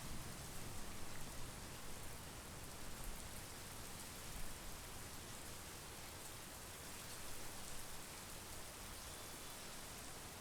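Steady monsoon rain falling, an even hiss of rain with a few brief louder spatters.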